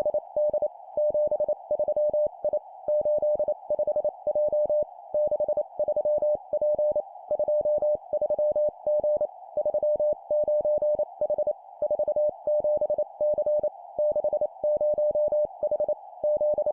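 Morse code (CW) tone at a single steady pitch, keyed in dots and dashes at 25 words per minute, sending three-character groups of two digits and a letter with short pauses between groups. A steady narrow band of hiss runs under the tone.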